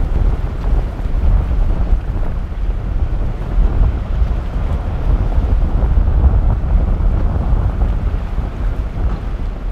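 Strong wind buffeting the microphone as an uneven low rumble, with waves and surf breaking underneath.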